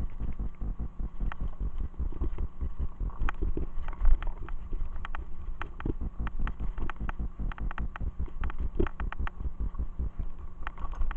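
Mountain bike riding a dirt forest singletrack: a constant low rumble of tyre vibration and wind on the microphone, with frequent sharp clicks and rattles as the bike jolts over bumps.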